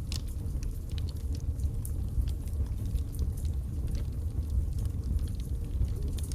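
Wood logs burning in a fireplace: a steady low rumble of the fire with frequent irregular crackles and pops.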